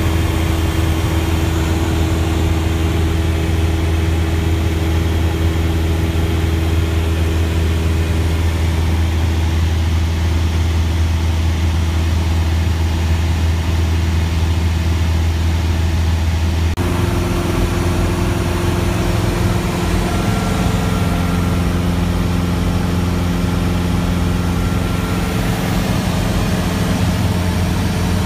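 Cessna's engine and propeller droning steadily at cruise, heard inside the cabin, with a strong low hum. A little over halfway through, the pitch of the drone shifts suddenly.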